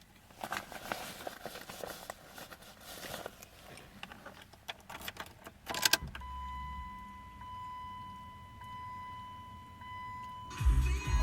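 Keys jangling and clicking for several seconds. Then a steady electronic warning tone sounds once the ignition is on, over a low hum. Near the end the 2001 Dodge Stratus's 2.4-litre four-cylinder engine cranks and starts.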